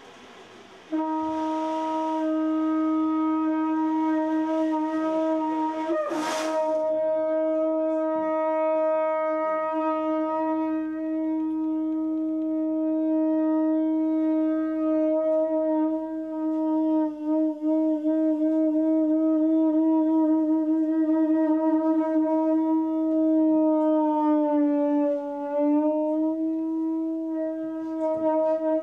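A conch shell trumpet blown in one long, loud note, held steadily for almost the whole stretch after starting about a second in. About six seconds in there is a brief rushing noise, and near the end the note sags in pitch for a moment and recovers.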